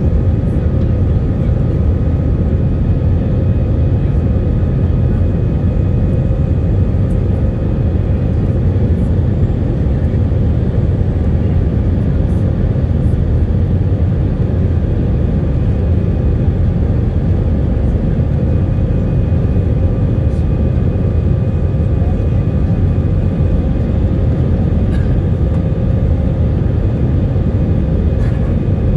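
Steady noise inside the cabin of an Airbus A319 climbing after take-off: a loud low rumble from its wing-mounted turbofan engines, with a few steady whining tones above it.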